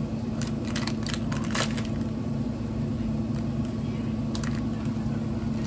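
Plastic snack bag crinkling as it is worked open by hand, with a few sharp crackles in the first second and a half and one more later. A steady low hum runs under it.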